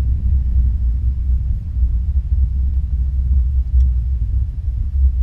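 Dodge Ram pickup's engine and exhaust running with a steady low rumble, heard from inside the cab.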